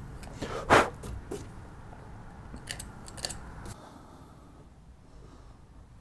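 A Stanley knife blade slicing and scraping waste from a hinge recess in softwood. There is one loud scrape just under a second in, then a few lighter clicks and scrapes.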